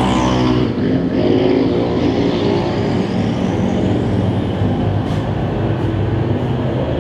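Small-engine dirt-track race cars running together on the oval, their engines sounding continuously and overlapping. About half a second in, one engine's pitch falls as it goes by.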